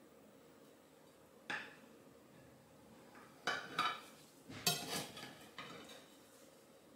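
Cake knife tapping and scraping against a plate while cutting a slice of layered honey cake: one click about a second and a half in, then a cluster of short clinks and taps around the middle.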